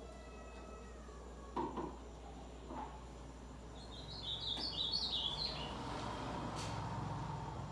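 Ultramarine grosbeak (azulão) singing one short phrase of quick high notes that step up and down, about four seconds in. Two soft knocks come before it, and a low rumbling noise builds near the end.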